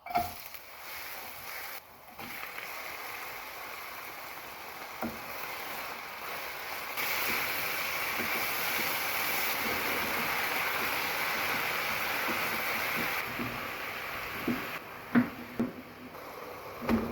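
Food cooking in a pot with a steady hiss, louder for about six seconds in the middle, and a few utensil knocks against the pot near the end.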